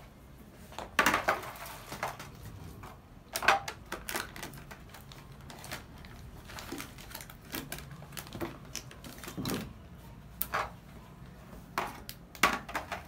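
Metal milk cans clinking and knocking against each other and the floor as they are lifted out of a cardboard box and set down, in a string of irregular sharp knocks.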